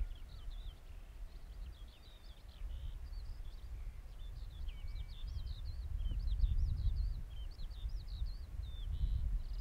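Small songbirds singing: a steady run of quick, varied chirps and trills, over a low, uneven rumble of wind on the microphone.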